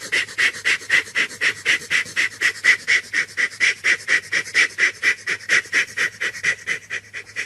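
Steam-engine chuffing: a rapid, very even puff-puff rhythm of about five puffs a second, a tank engine puffing steadily along.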